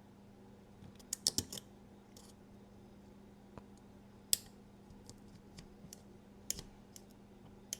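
Small metal tool clicking and scraping against the parts of a folding knife as it is taken apart: a quick cluster of clicks about a second in, then single sharp clicks every second or two, over a faint steady hum.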